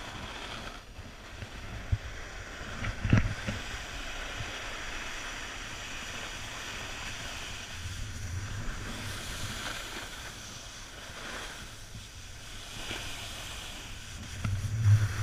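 Wind rushing over the microphone and the steady hiss of sliding down a groomed snow slope, with a few low thumps, the loudest about three seconds in and near the end.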